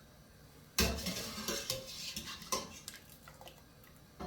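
A metal cooking utensil stirring and scraping food in a pan, clattering against it. It starts suddenly about a second in, goes on busily for a couple of seconds, then eases off, with a short knock near the end.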